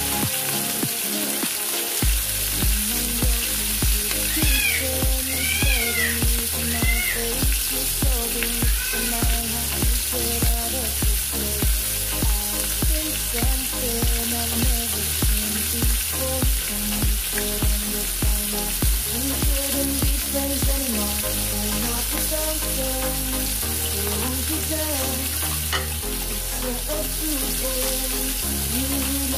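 Breaded tawilis (small freshwater sardines) sizzling steadily as they fry in hot oil, under background music with a steady beat.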